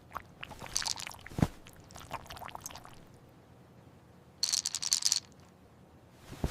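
Corgi puppy chewing a stolen snack: irregular wet, crunchy clicks with one louder knock about a second and a half in, then a short rustling hiss near the middle.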